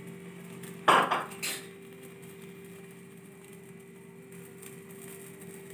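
A clatter of kitchen utensils about a second in, ringing briefly, followed by a smaller knock. A faint steady hum runs underneath.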